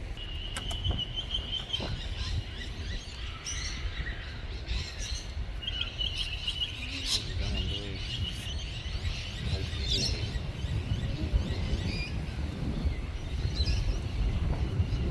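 Wild birds calling: a rapid high trill near the start and again about six seconds in, with scattered short chirps, over a steady low rumble.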